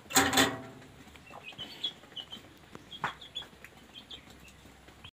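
Chickens clucking, with short high chirps scattered through and a light knock about three seconds in.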